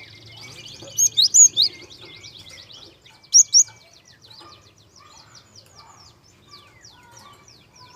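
Small songbirds chirping and twittering continuously, with a loud run of four clear whistled notes about a second in and two more a little after three seconds.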